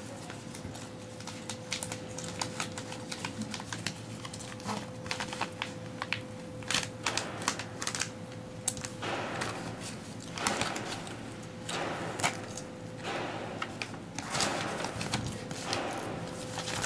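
Paper and plastic packaging rustling and crinkling as hands open a padded mailer and handle its contents on a table, with many irregular small clicks and taps.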